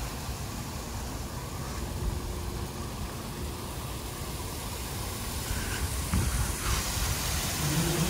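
Water wall fountain: water sheeting down textured stone panels and splashing at the base in a steady rush, over a low rumble. It grows louder in the last couple of seconds.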